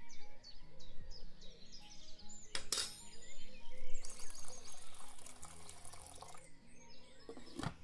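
A sharp click about two and a half seconds in, then water poured into a metal pot with a wire steamer rack: a steady splashing stream lasting a couple of seconds, over soft background music.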